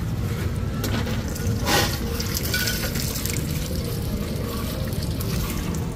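Oil sizzling in a cast-iron pan as a crispy shellfish omelette (hoy tod) fries, with a louder surge of sizzling about two seconds in, over a steady low hum.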